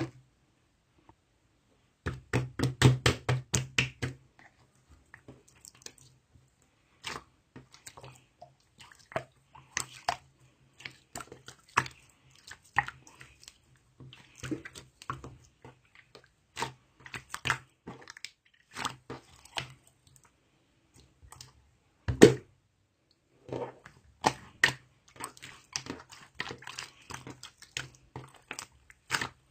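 Close-up mouth sounds of eating: irregular wet clicks and smacks of chewing or lapping, in bursts with short pauses. The densest run is about two to four seconds in, and there is one sharp knock about two-thirds of the way through.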